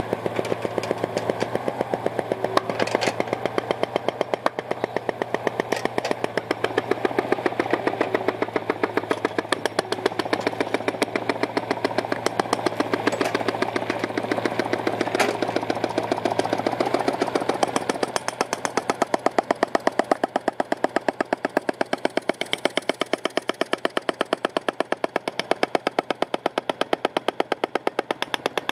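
Hammerhead 8-inch pneumatic impactor hammering underground in rapid, even blows as it bursts the old 6-inch PVC sewer line, over a steady engine drone that eases about two-thirds of the way in.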